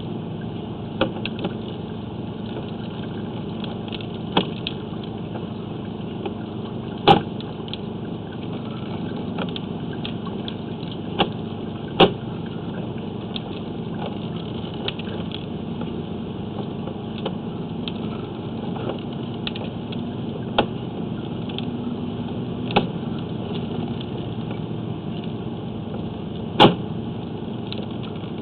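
A steady mechanical hum with about a dozen sharp clicks scattered through it.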